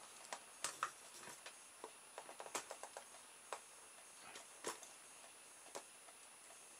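Faint, irregular light clicks and taps of a soldering iron tip against a thin plastic toy boat hull as the iron melts a hole through it.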